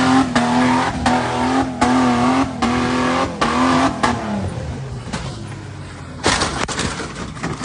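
Off-road 4x4 truck engine revving hard and held at high revs, its note wobbling, with repeated sharp knocks. About four seconds in the revs drop off, and a loud burst of noise follows a couple of seconds later.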